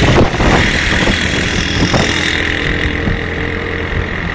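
Motorcycle engine running steadily at road speed, with wind and road noise rushing over the microphone of the moving bike.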